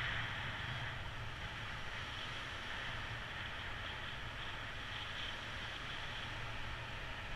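Steady wind rushing over the microphone in flight, a low buffeting rumble under a hiss.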